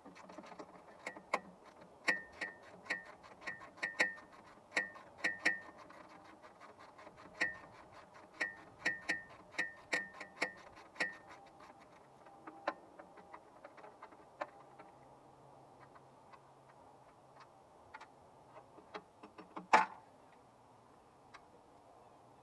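Metallic clicking and ringing taps, a few a second and irregular, from hand tools working the nuts and bearing fittings of a sawmill's guide assembly. The clicks thin out about halfway through, and one louder metal clank comes near the end.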